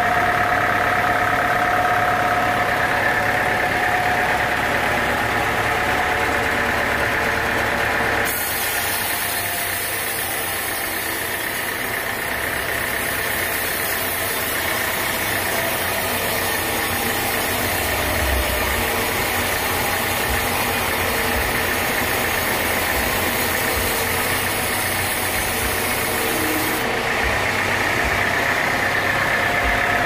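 Band sawmill running steadily. From about eight seconds in until near the end a wide hiss joins the machine hum as the blade cuts through a teak slab.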